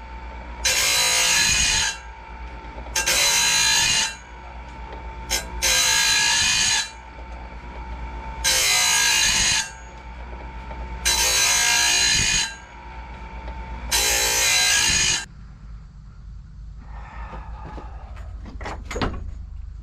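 Electric sawmill band-blade sharpener running with a steady whine, its grinding wheel biting into the blade six times. Each grind lasts about a second, coming roughly every two and a half seconds, one tooth after another. The whine stops about fifteen seconds in.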